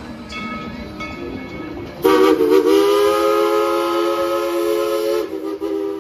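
Narrow-gauge steam locomotive No. 70's Crosby three-chime steam whistle sounding a long chord that starts about two seconds in, with a brief break near the end. Before it a locomotive bell rings at an even pace.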